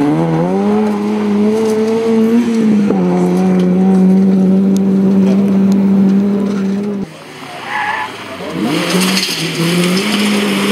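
Rally car engines revving hard under full acceleration on a loose gravel stage. The first engine climbs steeply, shifts up about three seconds in and holds high. Near the end a second car revs up and shifts, with tyres scrabbling and spraying gravel.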